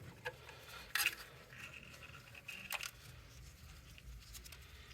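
A few light clicks and taps of small printer parts being handled while the carriage belt is refitted, the sharpest about a second in, over faint rustling.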